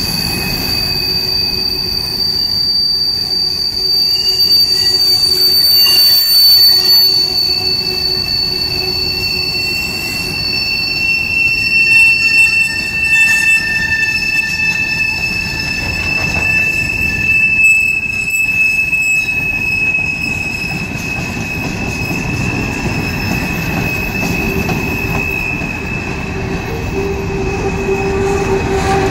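Loaded rock-train hopper cars rolling past close by, the steel wheels rumbling on the rails with a steady, high-pitched squeal in several pitches that drift and fade in and out.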